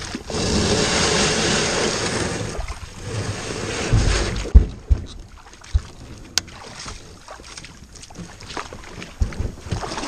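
Shallow river water rushing and splashing around a canoe being hauled through it by hand. It is steady for the first few seconds, then quieter, with a few dull low thumps about four to six seconds in.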